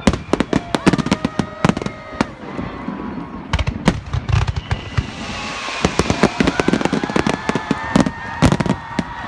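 Fireworks going off: many sharp bangs and crackles in quick succession, thickest in the second half.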